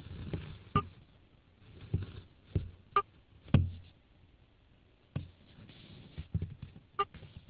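Scattered heavy raindrops striking a hard surface near the microphone: about a dozen irregular sharp taps and knocks, a few of them ringing briefly.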